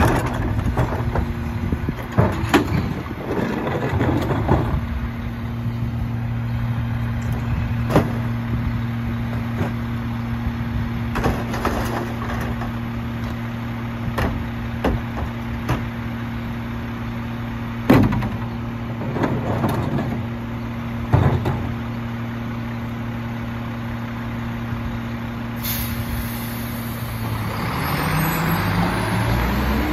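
Mack LEU garbage truck's engine running with a steady hum while bins and recyclables knock and clatter into the McNeilus rear-loader hopper now and then. Near the end there is a hiss of air, then the engine rises in pitch as the truck pulls away.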